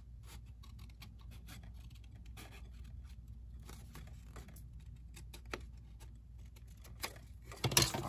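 Small scissors trimming a rough edge off a piece of patterned paper: many quick, light snips and paper rubbing, with a couple of louder clicks near the end as the paper is handled.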